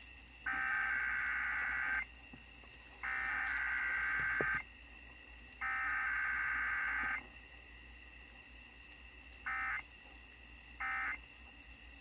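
Emergency Alert System SAME data tones: three bursts of rapid, buzzing digital tones about a second and a half long, a second apart, then three much shorter bursts of the same tones, marking a broadcast test of the Emergency Alert System.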